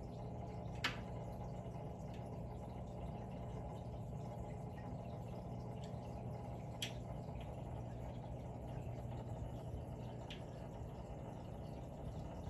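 Steady low hum and water flow of a saltwater aquarium's pump and circulation, with three short sharp clicks.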